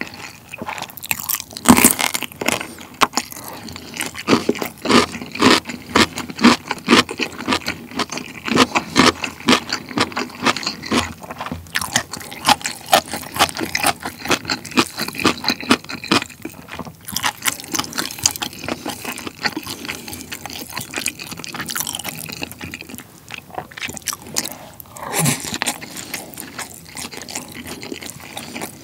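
Close-miked chewing of crisp young radish kimchi (chonggak kimchi): rapid, loud crunches, one after another, with a few short pauses between bites.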